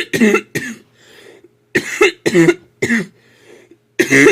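A child coughing in three short fits of several coughs each, spaced a second or so apart.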